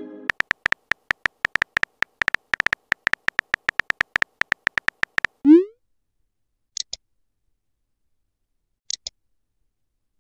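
Phone keyboard typing clicks from a texting-story app, rapid and even at about seven a second for about five seconds. They are followed by a short rising pop as the message is sent, and later a few faint double ticks.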